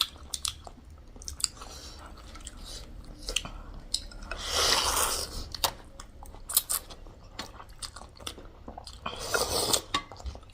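Close-miked mukbang eating of noodle soup and spicy chicken: chewing with many small wet mouth clicks, plus two longer noisy stretches of about a second each, around four and nine seconds in.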